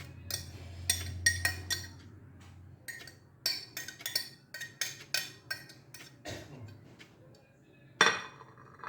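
Clinks and taps against a glass jar: a quick, uneven string of sharp clinks, each with a short ring, with a louder knock near the end.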